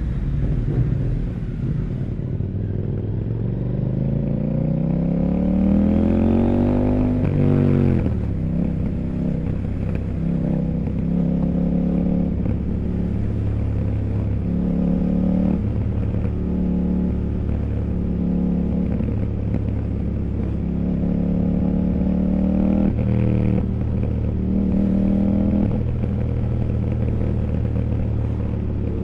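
CFMOTO 800NK parallel-twin motorcycle engine under way. Its revs climb steadily for several seconds and drop sharply about eight seconds in, then rise and fall again and again as the throttle is worked.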